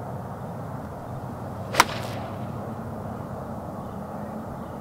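Golf club striking the ball on a full swing from the tee: one sharp crack about two seconds in, with a faint echo just after it.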